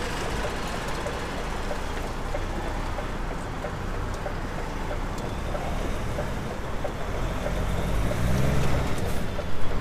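Articulated lorry's diesel engine heard from inside the cab, running at low revs as the truck creeps through a tight turn. The engine note climbs in the last few seconds as it pulls away.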